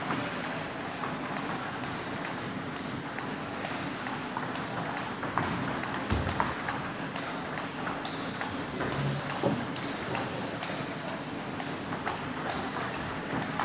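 Table tennis ball clicking off rackets and bouncing on the table during a rally, a run of short sharp ticks with some hall echo. A couple of duller knocks and a brief high squeak come in near the end.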